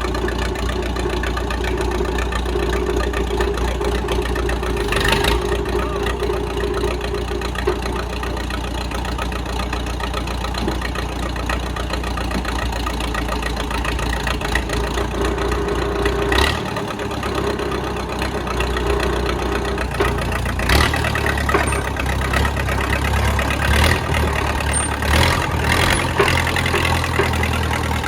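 Case 450 bulldozer engine running at idle, with a few sharp clanks. About twenty seconds in, the engine note gets deeper and a little louder.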